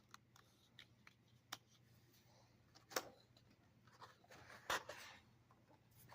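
Faint paper rustling with scattered light ticks as the pages of an instruction manual are handled and turned, with a slightly sharper one about halfway through and a busier patch near the end.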